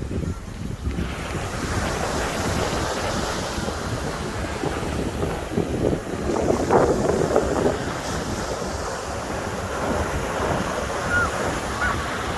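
Sea waves washing onto the shore, with one louder wave breaking about two-thirds of the way through, and wind buffeting the microphone.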